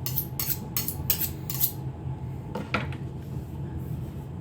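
Knife blade swiped along a sharpening steel, quick strokes of metal on metal about three a second, stopping a little under two seconds in. The strokes pull the burrs off the freshly stoned edge and straighten it.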